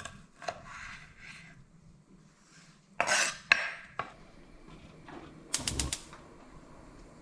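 Kitchen clatter of a knife and metal cookware being handled: scattered knocks and clanks, the loudest two about three seconds in, and a quick run of clicks about five and a half seconds in.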